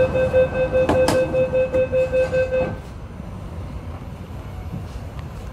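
MTR train door-closing warning: a rapid high beeping, about four beeps a second, that stops a little before halfway through, with a single knock about a second in. After it, the low steady rumble of the train standing.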